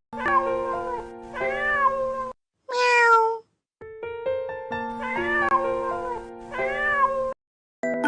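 Domestic cat meowing once, loudly and with a falling pitch, about three seconds in, over background music of held notes with gaps between phrases.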